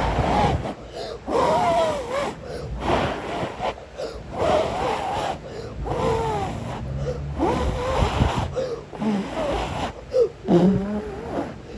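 A person imitating a howling windstorm with their voice: repeated breathy whooshes and wavering, rising-and-falling howls in swells every second or two, with low rumble like breath hitting the microphone.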